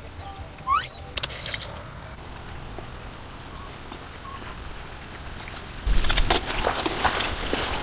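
A short rising squeak about a second in. Then, from about six seconds in, catfish frying in hot oil in a wok, sizzling with a steady crackle of small pops.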